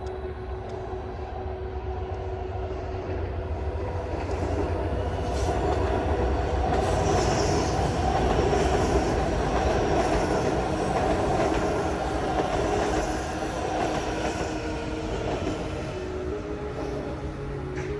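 A train passing by on the rails, growing louder to a peak about halfway through and then fading.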